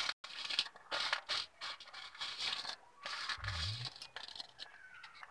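Steel spoon scraping and stirring against the metal pan holding thickened, reduced milk, in repeated short strokes. A low thump about three and a half seconds in.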